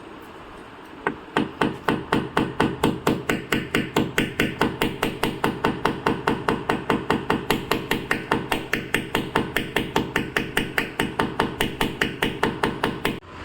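Rapid, evenly spaced hammer taps, about four or five a second, starting about a second in and stopping abruptly just before the end: paintless dent repair tapping on the panel.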